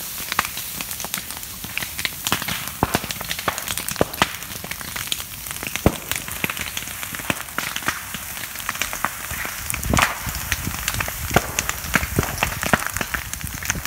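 Burning bamboo and dry leaf litter crackling with many irregular sharp pops, over a steady hiss of water spraying from a garden hose onto the fire. A louder crack with a dull thump comes about ten seconds in.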